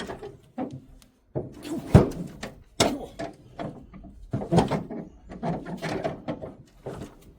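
Grey Fergie tractor's petrol engine being turned over by hand on the starting handle: a series of irregular clunks and knocks, with no sign of the engine firing.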